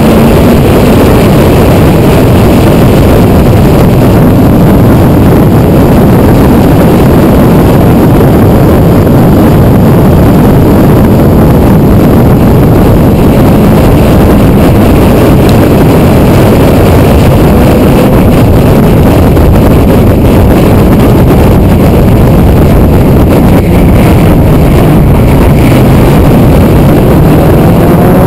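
Porsche 911 Turbo engine running hard on track, mixed with heavy wind noise, the recording loud and saturated throughout. Over the last few seconds the engine note climbs steadily as the car accelerates.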